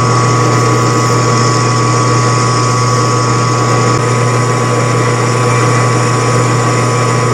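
12x36 metal lathe running steadily while its tool cuts a scrap steel ring. A constant motor and gear hum with steady high whining tones over it.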